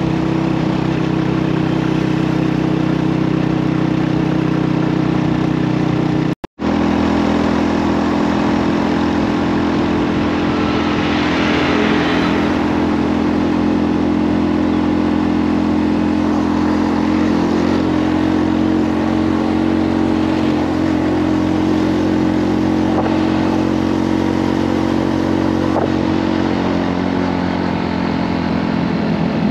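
Motorcycle engine running steadily under load while climbing a mountain road, its pitch holding level. The sound cuts out completely for a moment about six seconds in.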